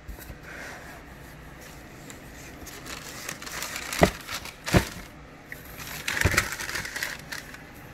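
Tissue paper inside a sneaker box rustling and crinkling as it is folded back from the shoes, with two sharp knocks about four and five seconds in and a denser spell of crinkling near the end.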